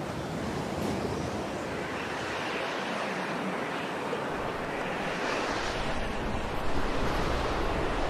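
Storm wind rushing and gusting against the tent, building louder with low buffeting in the second half.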